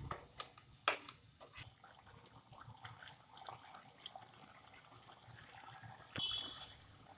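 Vermicelli simmering in jaggery syrup in a non-stick wok: faint, uneven bubbling and popping of the boiling syrup, with a few sharp clicks of the spatula against the pan in the first two seconds.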